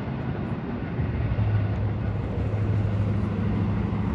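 Road traffic: a motor vehicle's engine humming steadily at a low pitch, settling in about a second in, over a steady rush of road and wind noise.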